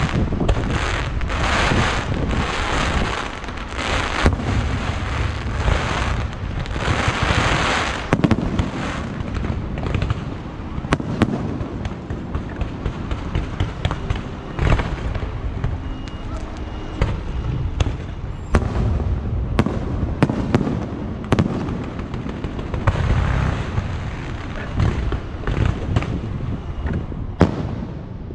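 Fireworks display: rapid volleys of hissing launches for the first several seconds, then a long run of sharp, scattered bangs and cracks from bursting shells, with another stretch of hissing volleys near the end.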